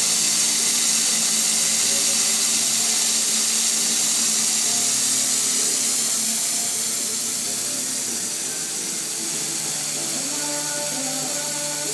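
Laser cutting machine cutting a wooden sheet: a steady hiss with whining tones that step from one pitch to another as the cutting head moves.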